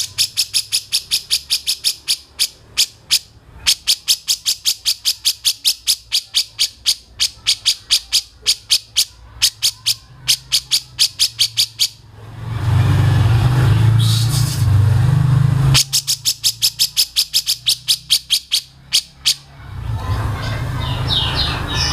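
A caged songbird calls a rapid series of sharp, high chip notes, about five a second, in two long runs. In the middle the notes break off while a loud low drone takes over for a few seconds.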